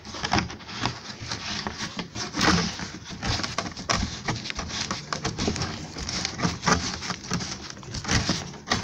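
Plastic pour spout being twisted onto the threaded neck of a plastic 20-litre fuel jerrycan: irregular scraping clicks and knocks of plastic on plastic as the threads are worked. The spout is not seating right, which the man takes for a cross-threaded fit.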